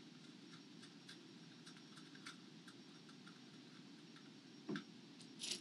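Faint scattered clicks and ticks of small white plastic standoffs being twisted by hand into tapped holes in a fiberglass sled, with a louder knock about three-quarters of the way through and a sharper click near the end.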